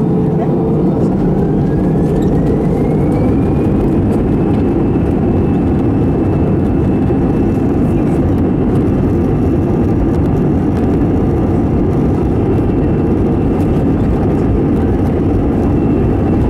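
Airbus A320's jet engines heard from inside the cabin, spooling up: a whine rises in pitch over the first few seconds, then holds steady at a high pitch over a loud, steady roar, as takeoff thrust is set for the takeoff roll.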